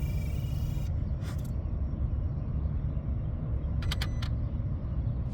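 Throttle body and relay on a switched-off 2023 Kia Sorento cycling on their own. There is a short motor buzz at the start, a pair of clicks about a second in, and a quick run of clicks near four seconds, all over a steady low rumble. Some circuit is staying powered or shorting to power with the vehicle off.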